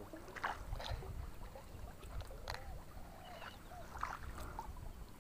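Faint splashing and sloshing of water as a person wades chest-deep through a weedy canal, with scattered small splashes and clicks over a low rumble.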